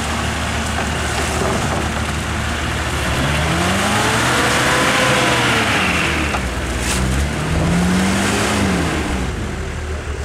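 An off-road 4x4's engine revving hard, its pitch climbing and falling in two long sweeps, the first peaking around the middle and the second near the end, over a steady noisy rush.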